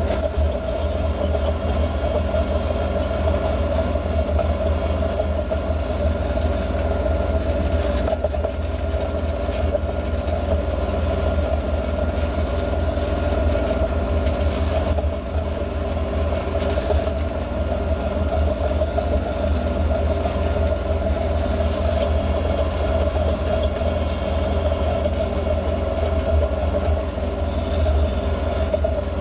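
Kubota B2601 compact tractor's three-cylinder diesel running steadily while its angled rear blade scrapes across hard, icy, crusty snow, a continuous rough scraping under the engine's hum.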